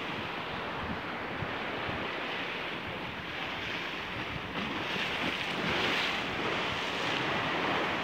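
Sea surf washing against rocks at the foot of a stone sea wall, a steady rush of water that swells a little louder about two-thirds of the way through, with some wind noise on the microphone.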